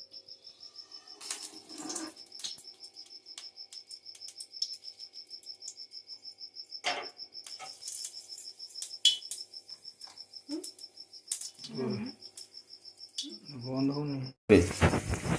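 A cricket chirping steadily in a fast, even pulse, with scattered sharp clicks and knocks. A brief pitched sound and then a louder rush of noise come near the end.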